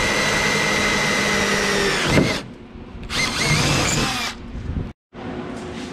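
Cordless drill with a 9/32-inch bit boring through sheet metal: one steady run that winds down about two seconds in, then a second, shorter run that stops a little after four seconds.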